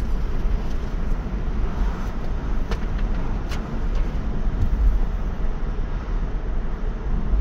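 Road and wind noise inside a 2017 Audi A4 cruising with its windows down, a steady low rumble. A few light clicks come in about the middle.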